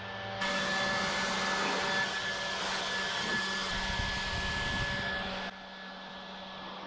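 Pressure washer spraying: a loud, steady hiss of the water jet that starts about half a second in and cuts off suddenly about a second and a half before the end, over a steady hum from the washer's motor.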